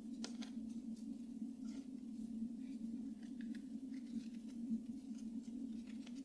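Faint rustling and light crackles of a thin spring roll wrapper being folded and rolled by hand, over a steady low hum.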